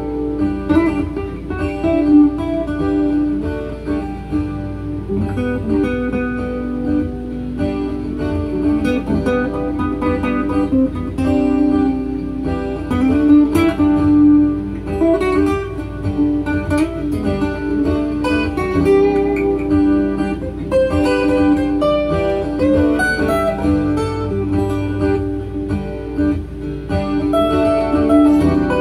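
Steel-string acoustic guitar played through a looper: picked and strummed notes over repeating looped guitar layers, in a steady improvised jam.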